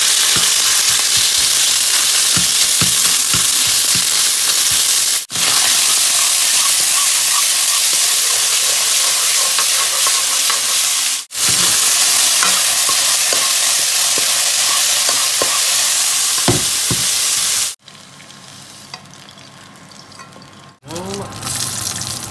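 Thin beef slices sizzling in hot oil in a wok while stirred with a metal ladle, a loud steady hiss with occasional scrapes of the ladle on the pan. The sizzle cuts out abruptly twice and drops much quieter about 18 seconds in.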